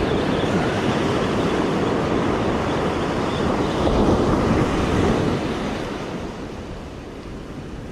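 Ocean surf breaking and washing up the beach, swelling about four seconds in and then falling away, with wind on the microphone.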